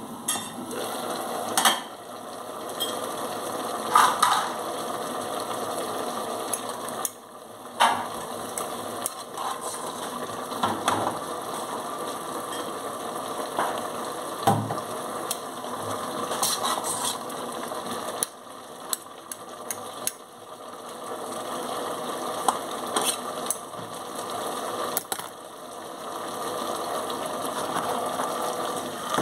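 Dishes washed by hand in a stainless steel sink: water running and splashing, with frequent clinks and knocks of dishes and cutlery. The water drops out briefly a few times.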